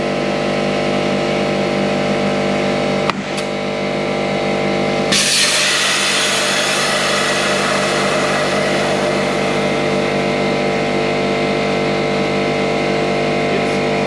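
An air compressor runs steadily, with a sharp click about three seconds in. About five seconds in, a loud hiss of compressed air starts and keeps going as air is fed through the hose into a kart tire.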